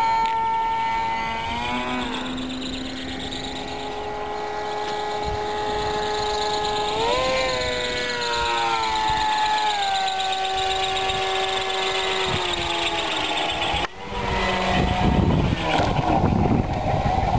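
Electric motor and propeller of an RC model autogyro whining in flight, its pitch rising and falling several times. Near the end the whine breaks off suddenly and a rough rushing noise takes over as the model sits on the runway.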